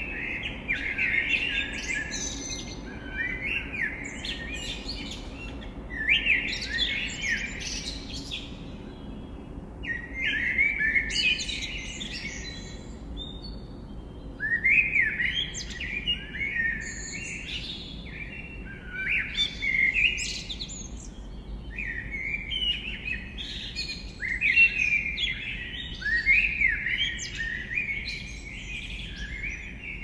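Songbirds singing at dawn: short, high twittering song phrases of about two seconds each, coming every few seconds, over a faint steady low city rumble.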